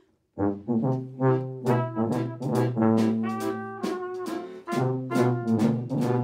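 Trumpet playing a jazzy solo line of quick, separate notes, starting about half a second in, with lower held notes sounding beneath it.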